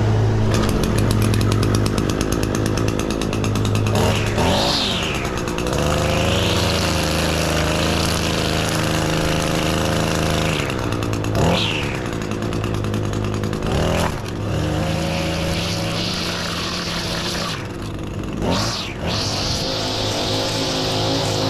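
Two-stroke gas string trimmer (weed eater) running at high throttle while cutting, its engine speed dropping and climbing again a few times.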